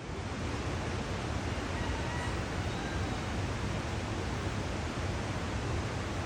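Steady rushing noise, even and unbroken, with a few faint short whistled tones about two seconds in.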